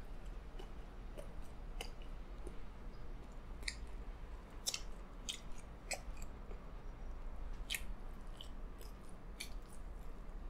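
Chewing of a mouthful of pepperoni pizza with a thick, dry crust, picked up close, with irregular crisp clicks and crackles.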